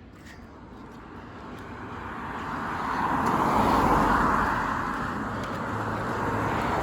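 A vehicle driving past, its tyre and engine noise growing louder to a peak about four seconds in, then fading.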